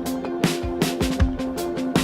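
Electronic dance music soundtrack: steady held synth notes over a driving drum beat of kick and snare hits.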